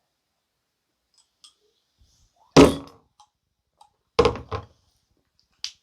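Dull thumps: one loud thump about two and a half seconds in, two more close together a second and a half later, and a small knock near the end.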